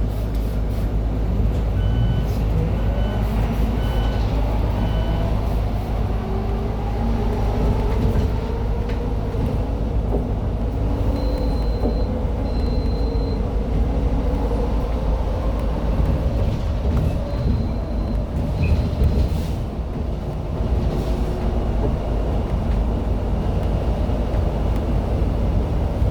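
Electric city bus (Kingwaay RAC-700-3000 with a TECO traction motor, direct drive) accelerating hard: the motor's whine climbs steadily in pitch over several seconds, then holds, over a low road rumble in the cabin. Five short electronic beeps come early on, and a few higher beeps come later.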